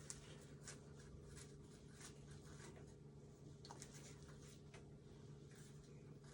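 Faint, irregular small scrapes and clicks of a knife digging the seeds out of small cucumbers, over a low steady hum.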